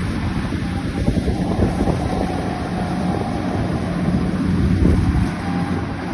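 An engine running steadily with a low hum, with wind noise on the microphone.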